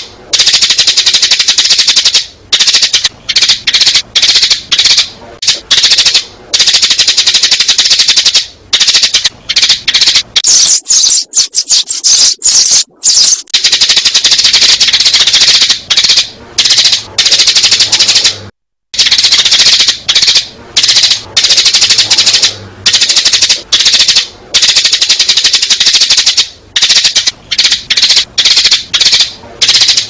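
Sparrows chirping in a dense, rapid, continuous chatter, very loud, with a brief break a little past halfway. It is a recorded sparrow lure call of the kind played to draw sparrows into traps.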